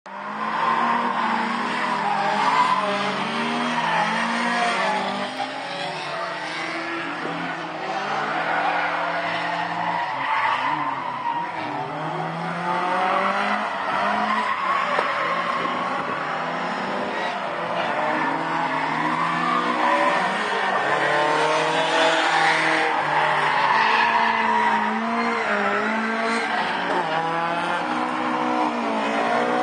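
Several rear-wheel-drive cars, Ford Escorts among them, revving hard and drifting around a tight circuit, engines rising and falling in pitch as they go on and off the throttle, with tyres squealing through the bends.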